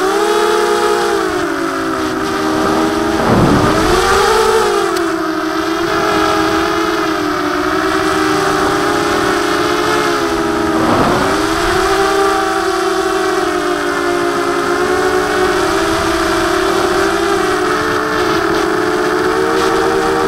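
Brushless motors and HQ 5x4 propellers of a Mini-H FPV quadcopter whining steadily in flight, heard from the onboard camera. The pitch drops sharply and climbs back twice, about three seconds in and again about eleven seconds in, as the motor speed is cut and brought back up.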